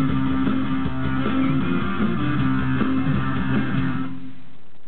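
Live rock band's final chord: electric guitar and bass guitar ringing out together with the drums, then stopping about four seconds in as the song ends.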